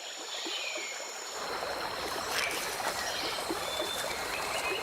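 Amazon river water flowing and trickling, a steady wash of water noise that grows fuller about a second and a half in.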